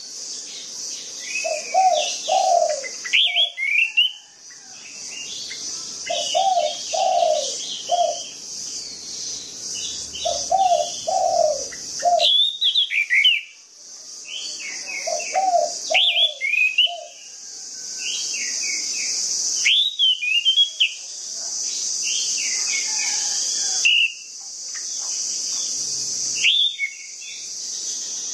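Orange-headed thrush singing: bursts of quick, sliding whistles and chirps, with lower whistled phrases that come back about every four seconds in the first half, over a steady high hiss.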